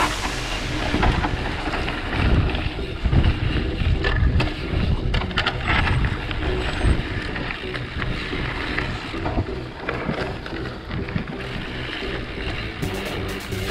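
Mountain bike rolling fast down a dirt trail, with wind rushing over the microphone and the knocks and rattles of the bike over bumps. A run of sharp clicks comes near the end.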